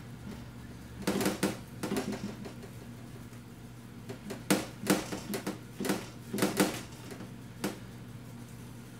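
Irregular taps and knocks of a utensil and hands on a metal baking sheet as a sticky dough is cut and pressed into small loaves: two bursts of quick knocks and a single knock near the end.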